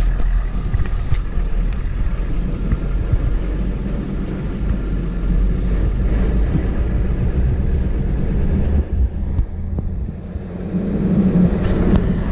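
Loaded vehicle driving across, its engine and tyres making a steady low rumble with scattered small knocks, growing a little louder near the end.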